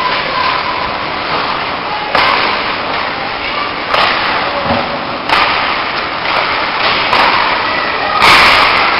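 Ice hockey play in an arena: steady rink noise with about five sharp knocks and slaps of sticks, puck and bodies against the ice and boards, the loudest near the end.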